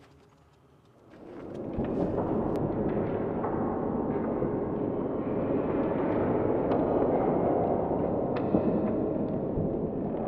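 A dense, thunder-like rumbling noise swells in about a second in and then holds steady, with faint scattered crackles.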